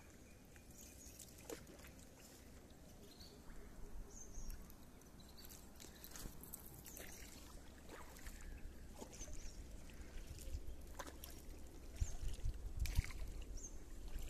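Faint water sounds around a small boat moving through a mangrove backwater: soft splashes and trickling, with scattered light knocks. A low rumble joins in over the last couple of seconds.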